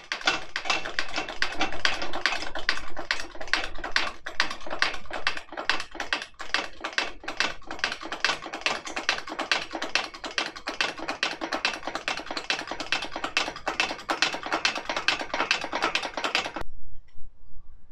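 Hand-pumped hydraulic engine crane raising its boom: a fast, dense run of clicks and rattles from the pump and boom joints that stops abruptly near the end.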